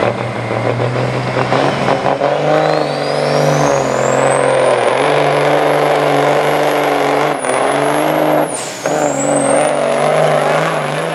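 1973 Kenworth semi truck's Caterpillar diesel engine running under full throttle pulling the weighted sled, its turbo whistle rising to a high steady whine. The revs and whistle dip briefly twice past the middle, then climb back as it kicks back in under the load.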